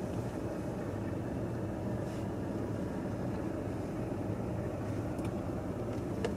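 Steady car interior noise while driving: an even low engine and tyre rumble heard from inside the cabin.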